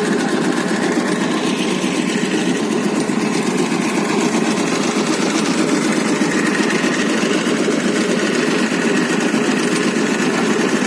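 Motorised tobacco-cutting machine running steadily.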